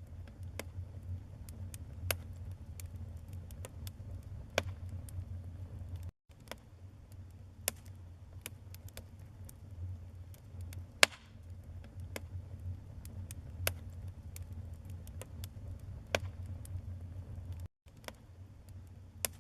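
Wood fire crackling in a fireplace: irregular sharp pops and snaps over a low steady rumble, with one loud pop about eleven seconds in. The sound drops out for an instant twice.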